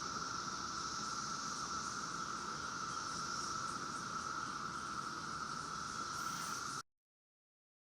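Chorus of periodical cicadas droning steadily, then stopping suddenly about seven seconds in.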